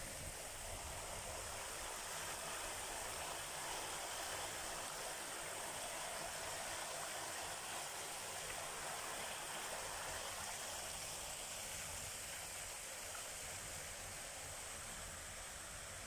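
Fast-flowing stream rushing over rocks in small rapids: a steady, even rush of water.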